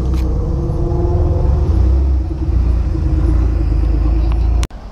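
Air-cooled Porsche 911 flat-six engine running at low speed as the car pulls slowly past, a steady low rumble. The sound cuts off suddenly near the end.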